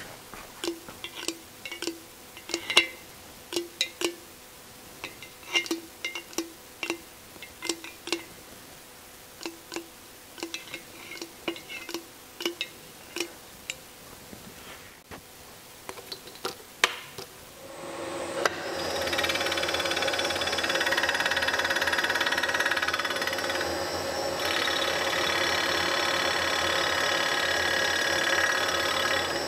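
A pump oil can squirting oil onto a Porsche engine's valve rockers: a sharp click with each pump, about one or two a second and unevenly spaced. About 18 seconds in this gives way to a milling machine running steadily, with an end mill cutting a metal part.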